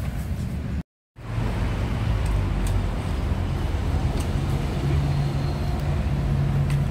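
Steady low rumble of road traffic, broken by a moment of dead silence about a second in. A low steady hum joins for the last two seconds.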